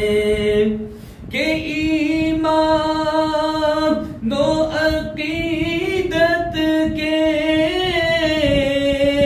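A man singing an Urdu naat unaccompanied, drawing out long, wavering held notes, with short breaks for breath about a second in and about four seconds in.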